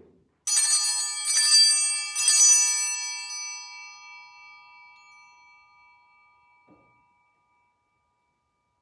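Altar bells rung three times, about a second apart, their bright ringing fading away over several seconds: the signal of the elevation of the consecrated host at the consecration of the Mass.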